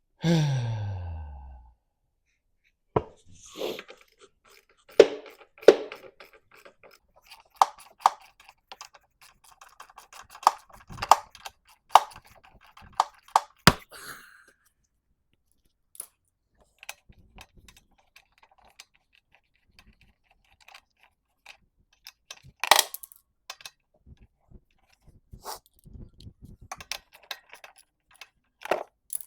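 Scattered clicks, taps and clinks of small parts and hand tools being handled while working on a lawn mower engine. It opens with a loud tone that falls in pitch over about a second and a half.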